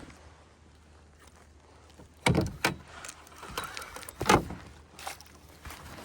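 A few sharp knocks and clatters in a canoe while a small largemouth bass is being played on the line: two close together a little past two seconds in, and a louder one just after four seconds.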